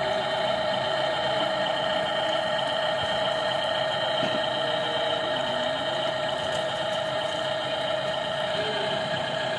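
Radio-controlled construction model's electric drive running with a steady, high-pitched whine that holds one speed.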